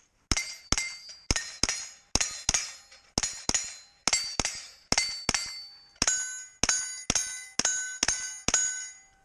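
Rapid rifle fire at steel targets: about twenty shots at roughly two a second, each followed by the ringing clang of a struck steel plate.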